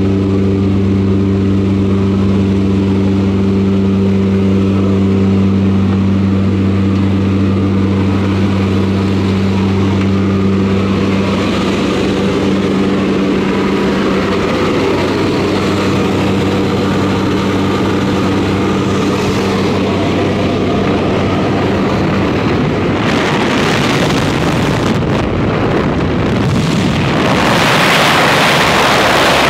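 Propeller jump plane's engine running steadily inside the cabin, a low hum of a few even tones. From about two-thirds of the way in a rush of air takes over through the open door, growing into loud wind noise near the end as the skydivers exit.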